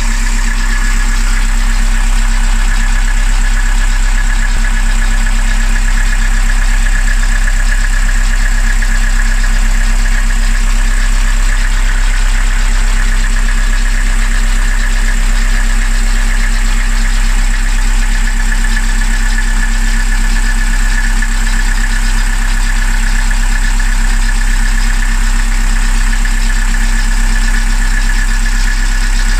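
BMC 2.2 four-cylinder marine diesel engine idling steadily, heard close up.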